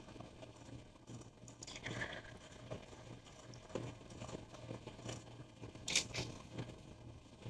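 A person hiccuping: a sharp hiccup about six seconds in, with a softer one around two seconds in, over a faint steady hum.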